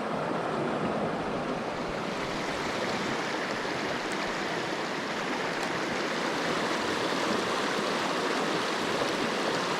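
Mountain stream rushing over rocks: a steady, even sound of flowing water.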